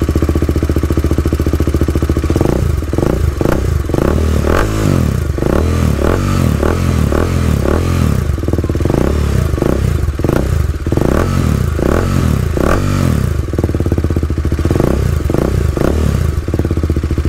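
TVS Apache RR 310's single-cylinder engine idling, then blipped up and down again and again, breathing through a Yoshimura-branded carbon-look slip-on muffler held to the exhaust outlet rather than clamped on. It has a bass-heavy note.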